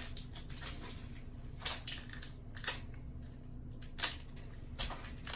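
Trading card pack wrapper being handled and picked at by hand: a few short crinkles and clicks, about four of them spread over several seconds.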